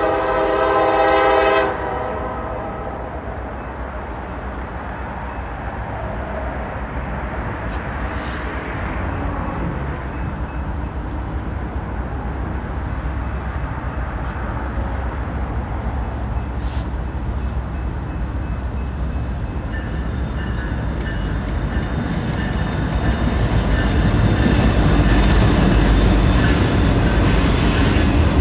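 A Nathan K5LA locomotive air horn sounds a chord that cuts off about two seconds in. Then the diesel locomotives of a loaded coal train, a Norfolk Southern SD70ACC and BNSF GE C44-9W units, rumble as they approach. The sound grows louder and adds wheel and rail clatter over its last few seconds as the lead units pass close.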